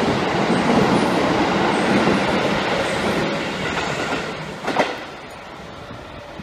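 Electric commuter train running past close by, its wheels rolling on the rails; the noise fades about two-thirds of the way through after a single short knock, then stays lower.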